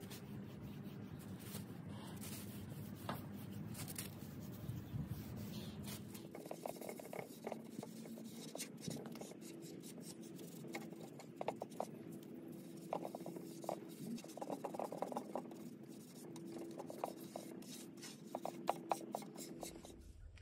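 Tack cloth rubbing over sanded painted wood, wiping off sanding dust: soft, scratchy wiping strokes. About six seconds in they become a run of short, uneven strokes.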